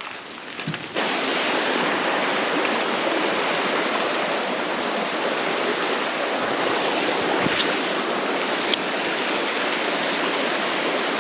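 Steady rush of flowing stream water, starting abruptly about a second in, with a couple of faint clicks midway.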